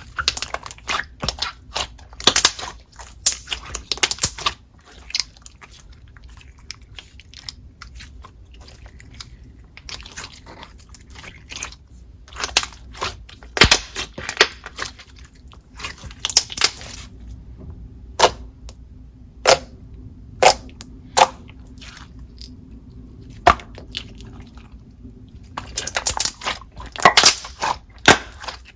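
Hands squishing, poking and stretching a clear putty-like slime, giving irregular wet clicks and small bubble pops that come in dense runs with short pauses between.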